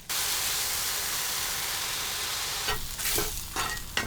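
Food sizzling in a hot stew pot. The sizzle starts suddenly as the food goes in, holds steady for a couple of seconds, then dies down under a few knocks and scrapes of stirring near the end.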